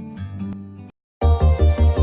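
Background music: one track cuts off just under a second in, and after a brief silence a different track starts with a fast, heavy bass beat.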